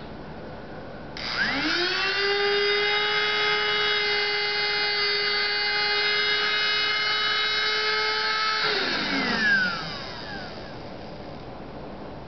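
Induction chamber evacuator's small motor switching on about a second in, spinning up to a steady high-pitched whine, running for about seven and a half seconds, then switching off and spinning down. It is drawing the gas out of the rodent induction chamber before the lid is opened.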